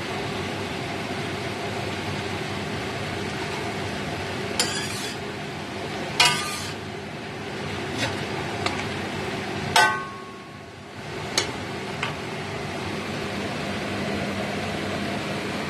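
A cooking utensil clanking against a stainless steel wok while stirring cabbage and fried tofu, about seven sharp knocks from a few seconds in, two of them louder with a brief metallic ring. A steady hum and hiss runs underneath.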